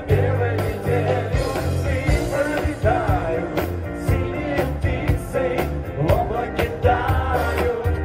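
Live band playing an amplified pop-rock song on electric guitars, bass, keyboards and drums, with a steady drum beat.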